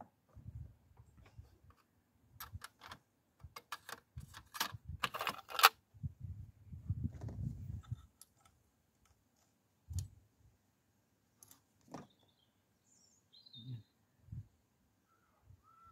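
Scattered clicks and clinks of metal parts and tools being handled in a car's engine bay, thickest about four to six seconds in, with a few dull knocks.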